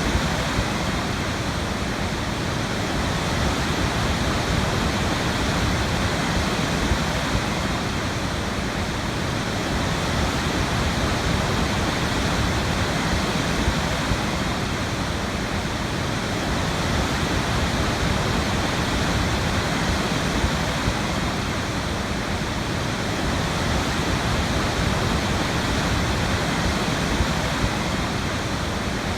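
A waterfall's water pouring and splashing in a steady, continuous rush.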